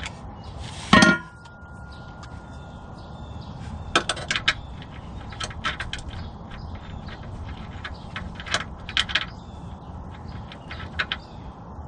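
A Steeda jacking rail set down on the driveway with one loud clank and a ringing tone about a second in, then scattered small metal clicks and clinks as a bolt is worked by hand into a threaded hole in the car's underside, being started at an awkward angle.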